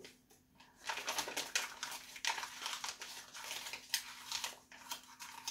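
A printed paper picture crinkling and crackling as it is bitten and chewed, a dense run of crackles starting about a second in.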